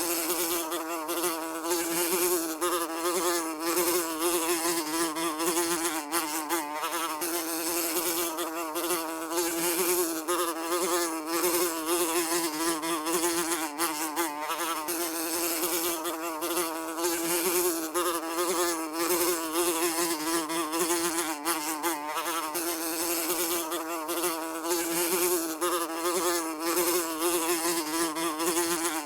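A fly buzzing continuously, its drone wavering a little in pitch as it flies.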